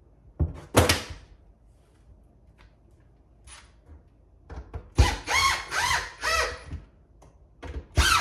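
A drill driving screws into wood: short runs of the motor whose pitch rises and falls, about four quick pulses in a row after the halfway point, with a brief sharp sound about a second in.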